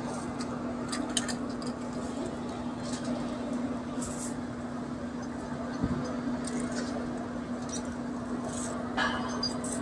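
A steady machine hum with scattered light clicks and a few short, high hisses.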